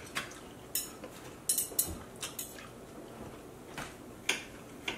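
Knife and fork clicking and scraping on a plate as a steak is cut, in short, unevenly spaced clicks a few times a second.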